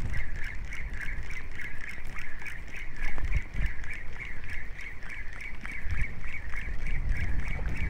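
Spinning reel being cranked on a lure retrieve, giving a high, rhythmic chirp about three times a second, with wind buffeting the microphone.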